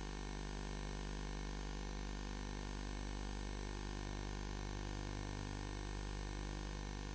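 A steady electronic drone of many held tones with a thin high whine on top, unchanging in pitch and loudness.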